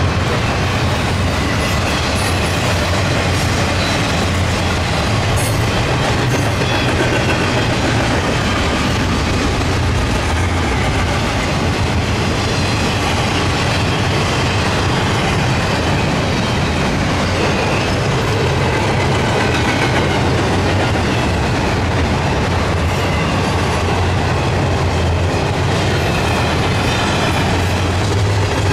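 Double-stack container freight train of well cars rolling past, a steady rumble of steel wheels on the rails.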